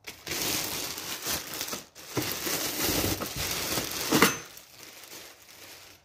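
Plastic packaging bags crinkling and rustling as they are handled, with a louder sharp crinkle about four seconds in, then quieter rustling.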